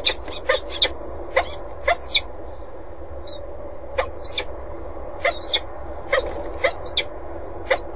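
Peregrine falcon calling: about a dozen short, harsh calls, singly or in quick pairs, over a steady low hum.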